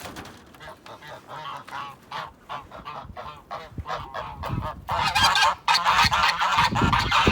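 Domestic geese honking over and over, several calls overlapping, getting louder and busier about five seconds in.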